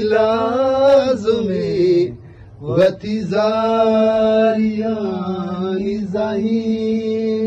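A man singing unaccompanied in a chant-like style: a phrase that slides downward and breaks off about two seconds in, then, after a short breath, one long held note.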